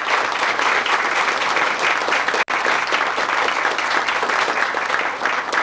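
Audience applauding: a dense, steady clatter of many hands clapping, broken by a split-second gap about halfway through.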